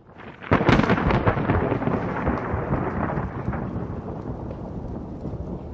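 A loud rumbling crash: it swells in, hits hardest about half a second in with a burst of crackle, then rolls on and slowly dies away over several seconds.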